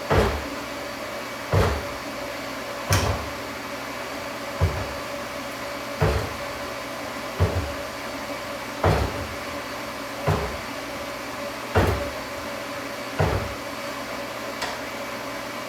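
Fly press striking hot steel in an even rhythm, about one heavy thudding stroke every second and a half, over a steady rushing hum.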